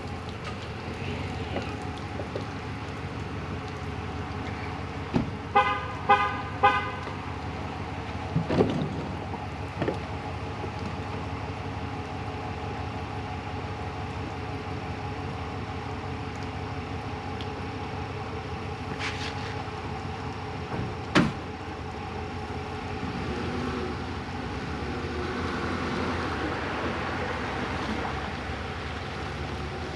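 Three quick toots of a vehicle horn about six seconds in, over a steady low hum, followed by a few scattered sharp knocks.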